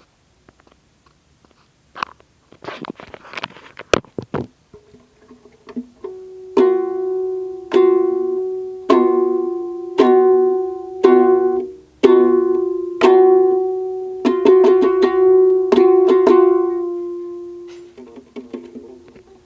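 Ukulele: a few seconds of scratchy tapping and rubbing on the instrument, then the same open chord strummed about once a second, each strum ringing and fading. Near the end come several quicker strums and a long ring-out. The player can't play.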